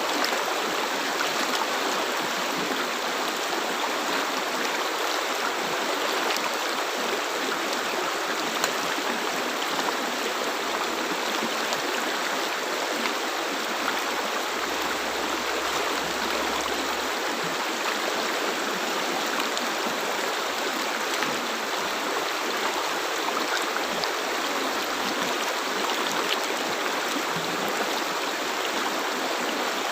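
River water flowing: a steady, even rushing with little low rumble and no breaks.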